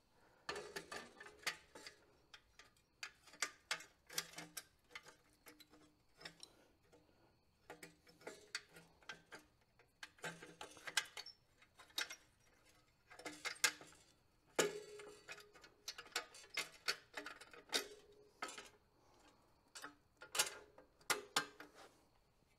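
Irregular light metal clicks and clinks as a chrome motorcycle exhaust pipe is handled and its flange worked onto the cylinder studs, with one louder knock that rings briefly about two-thirds of the way through.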